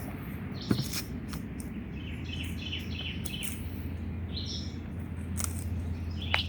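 Songbirds chirping repeatedly over a steady low hum, with two sharp knocks, one about a second in and one near the end.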